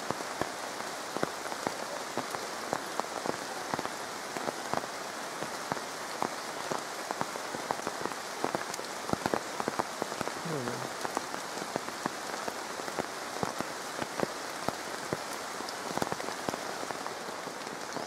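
Steady rainfall, an even hiss dotted with many sharp ticks of drops striking leaves and surfaces close by.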